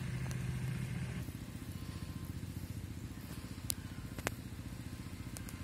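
A small engine running steadily, its low rumble louder for the first second or so and then even. Two sharp clicks come in the middle.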